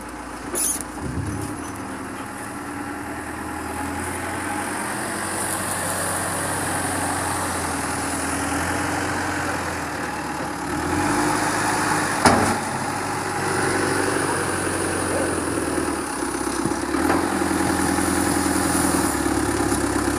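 Bulldozer's diesel engine running and working under changing load, its note shifting and growing louder, with a single sharp bang about twelve seconds in.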